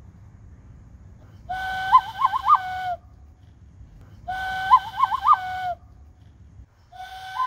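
A whistle-like pitched tone: a held note broken by three quick upward flicks, about one and a half seconds long. It sounds twice in the same way, and a third, slightly different phrase starts near the end, over a faint low rumble.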